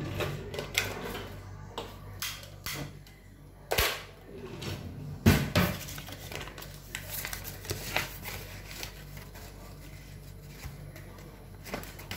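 Scattered knocks, clicks and clatter of kitchen things being handled, the loudest knocks coming about four and five seconds in, over a low steady hum.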